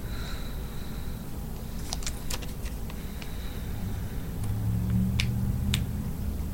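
Quiet room noise with a few soft clicks. A low rumble swells about four seconds in and fades near the end.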